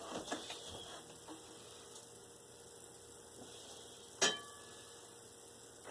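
Quiet kitchen room tone with faint handling clicks, and one sharp clink of kitchenware with a brief ring about four seconds in.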